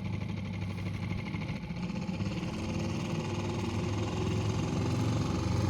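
Outboard motor of a small rented boat running steadily, with a low hum that slowly grows louder.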